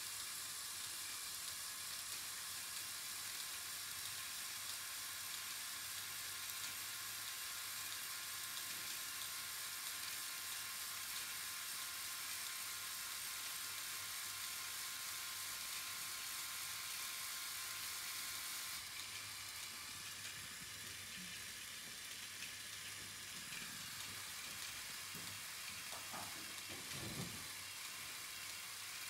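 The electric motors and plastic gear trains of a LEGO Technic bucket wheel excavator run with a steady whirring hiss. The hiss thins out about two-thirds of the way through, and there is a brief louder sound near the end.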